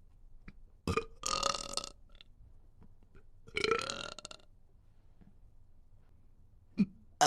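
A woman belching twice, each burp lasting well under a second: one a little over a second in and another at about three and a half seconds.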